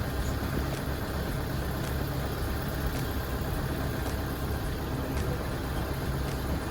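Engine idling steadily with a low, even rumble.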